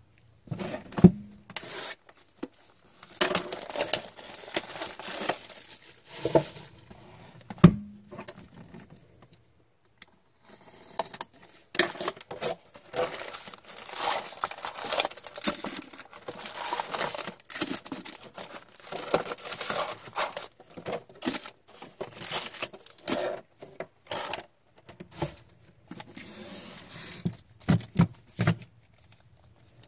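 Foil wrappers of hockey card packs being torn open and crinkled, in irregular bursts of tearing and rustling, with two sharp knocks, one about a second in and one near eight seconds.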